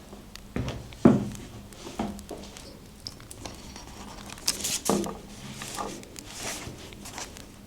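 Paper being handled and rustled, with a few soft knocks of materials set down on the desk, the loudest about a second in.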